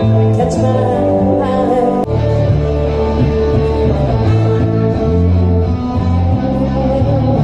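Live band playing a rock-style song with guitar, bass and a singing voice; the bass becomes heavier about two seconds in.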